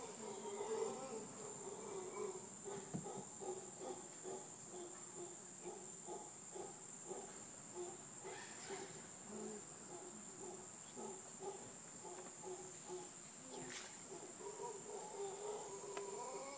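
Distant mantled howler monkeys calling in a rhythmic run of low, pulsed roars, over a steady high-pitched insect drone.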